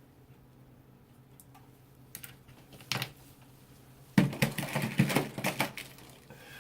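A few light clicks, then about four seconds in a quick, dense run of clicks and rattles lasting over a second, like small hard things being handled close to the microphone.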